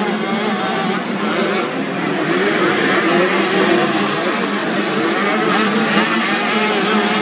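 Several 85 cc two-stroke motocross bikes racing, their engines revving up and down over one another.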